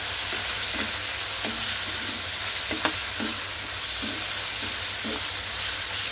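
Chicken pieces sizzling in oil in an open pan, a steady hiss, with a utensil stirring and scraping in the pan and a few short knocks against it, the clearest about three seconds in.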